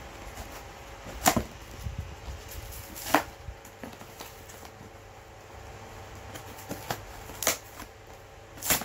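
Packing material of a parcel being handled and opened by hand: quiet scratchy rustling broken by four short, sharp crackles.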